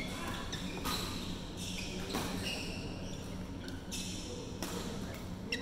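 Badminton play on synthetic court mats: scattered sharp cracks of rackets striking shuttlecocks, about five at irregular intervals, and short high squeaks of shoes on the court surface.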